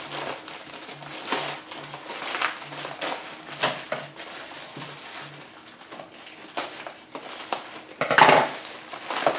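A clear plastic bag crinkling and rustling as it is handled and cut open with scissors, in a run of short crackles, with a louder burst of crinkling about eight seconds in.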